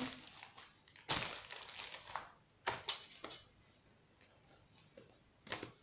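Clear plastic packaging crinkling and thin steel cutting dies clicking against each other as they are handled: a rustle about a second in, two sharp clicks near the middle, and another short rustle near the end.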